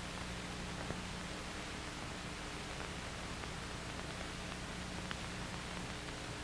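Steady hiss and low hum of an old film soundtrack, with a few faint clicks.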